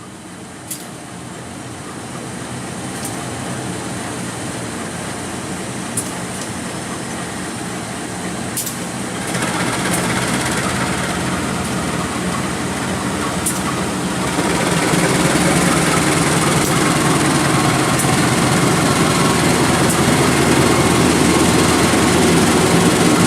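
CC203 diesel-electric locomotive's GE V12 diesel engine accelerating as the train pulls away, stepping up louder twice, about nine and fourteen seconds in, as the throttle is notched up. A few faint sharp clicks sound over it.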